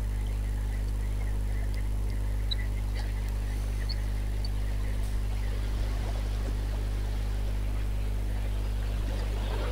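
Steady low rumble of sea surf and wind at a rocky shoreline, with a few faint high ticks.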